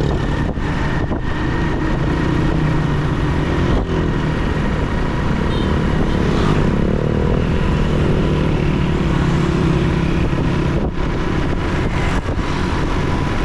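Motorcycle engine running steadily at road speed, heard from the rider's seat, with the engine note shifting briefly about six to seven seconds in.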